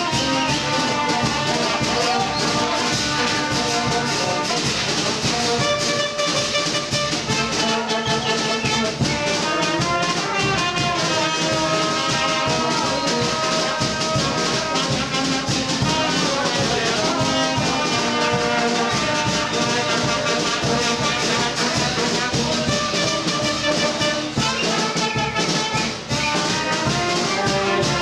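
Brass band with a tuba playing lively dance music, a continuous melody of brass horns over the tuba's bass line.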